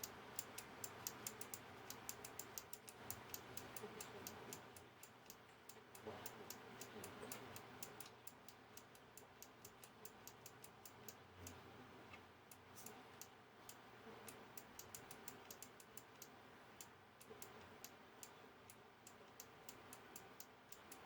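Faint, rapid, irregular clicking, several clicks a second: a small synthesizer switch being flicked back and forth to work DeoxIT contact cleaner into contacts that are still passing no current.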